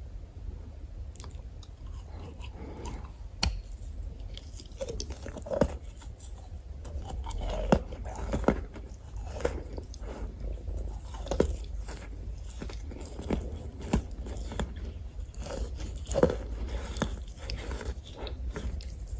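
Chalk being bitten and chewed close to the microphone: irregular sharp crunches, roughly one every second or two, over a low steady hum.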